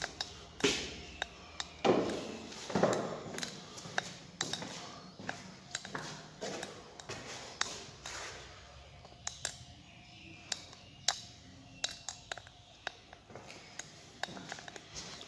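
Footsteps and irregular taps and clicks on a stone floor inside a small stone chamber. There are a few louder knocks about two and three seconds in.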